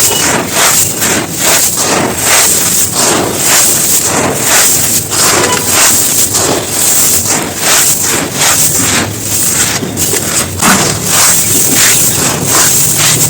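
Chunks of dried floor material being crumbled: dense, continuous crunching and crackling with irregular louder crunches.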